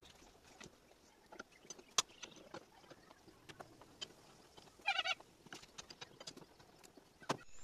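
Faint scattered clicks and knocks of hands working on a tractor's front bumper fittings. One short chirping call sounds about five seconds in.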